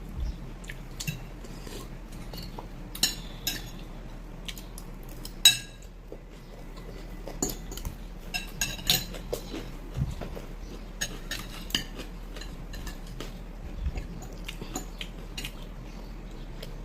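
Spoons and forks clinking and tapping against plates and bowls while eating: scattered light clinks, with a sharper one about five and a half seconds in.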